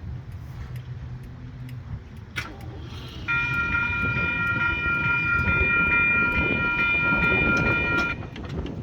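A horn sounding one long, steady blast of several notes together for about five seconds, starting a little over three seconds in and cutting off near the end, over a low rumble.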